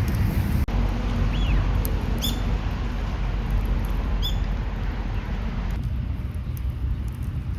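Wind buffeting the microphone with a steady low rumble, while a small bird gives three short, high chirps that fall in pitch, a second or two apart.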